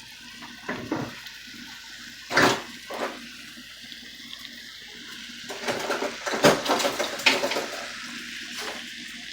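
Kitchen water sounds: a steady watery hiss, broken by several short clatters of cookware, loudest about two and a half seconds in and again around six to seven seconds in.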